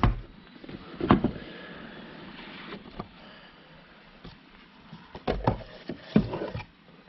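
Cardboard packaging being handled: a rigid white cardboard box is opened, its lid slid off with a soft rubbing hiss, with several knocks and taps as the box and its outer carton are set down and moved.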